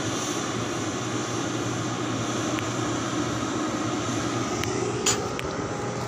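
Steady drone of heavy diesel machinery running, with a few sharp clicks about five seconds in.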